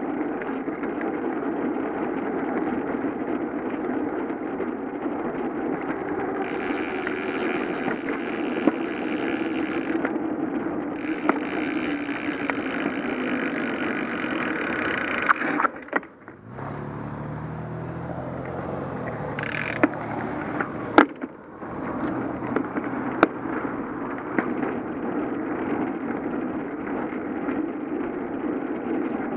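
Wind and tyre rush of a bicycle being ridden, heard on a bike-mounted action camera: a steady, noisy rumble with scattered clicks and knocks. About halfway through the rush cuts off for a few seconds and a low hum takes over, with a few sharp clicks, before the riding noise returns.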